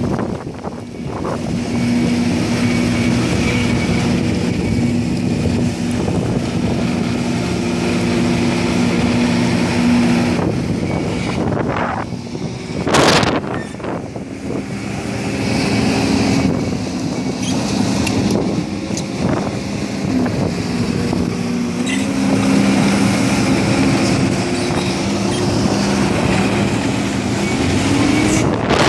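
Diesel engine of a construction machine running steadily under changing engine speed, its pitch stepping a few times. About thirteen seconds in there is a brief loud burst of noise.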